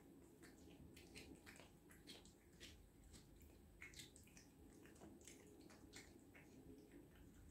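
Faint wet smacking and licking of a cat eating raw fish giblets off a plate, a run of quick irregular clicks.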